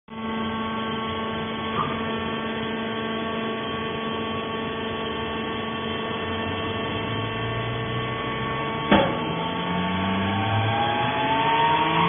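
Vertical hydraulic baler's electric motor and pump unit running, a steady hum with several held tones. There is a sharp knock about nine seconds in, and from about seven seconds on, tones rise gradually in pitch.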